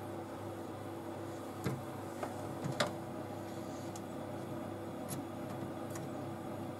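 Print Rite 3D printer's extruder head humming steadily while it feeds filament in after the extruder has been heated. A few light clicks come from fingers handling the filament and the extruder's plastic lever.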